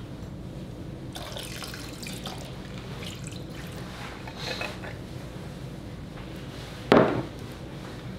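Sweet pickle juice pouring from a glass jar into a slow cooker's liquid, dribbling and splashing. Near the end comes one sharp knock, the glass jar set down on the countertop.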